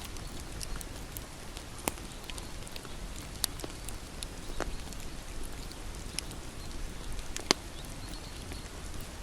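Wood bonfire crackling: a steady low noise of burning under scattered sharp pops, the loudest about seven and a half seconds in.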